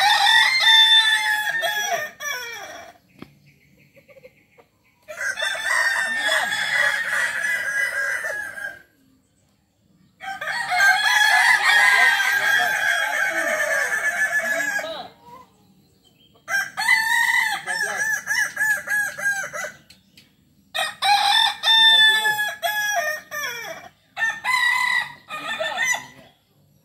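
Kukuak balenggek roosters crowing. This native West Sumatran village chicken breed is known for its long crow that rises and falls through several stages. There are about six crows one after another, each lasting two to five seconds, with short pauses between them.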